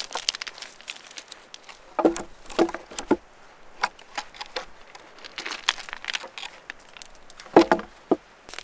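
Crinkling and rustling of gear being handled, with a few short dull knocks: three about two to three seconds in and two more near the end.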